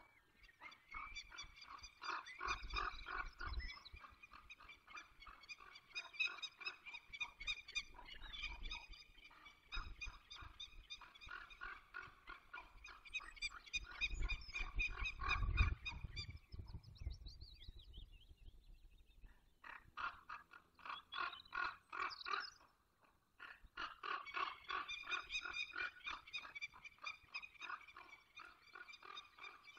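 Downy peregrine falcon chicks calling in fast, continuous strings of high-pitched notes, breaking off briefly twice in the second half. Low rumbles come in now and then underneath.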